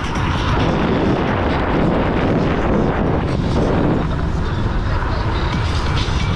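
Steady wind rush and rumble on the microphone, with road noise, while riding a Dualtron X2 Up electric scooter at speed.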